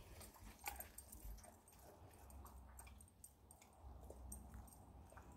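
Faint, scattered crunching and clicking of a dog chewing a turkey neck treat.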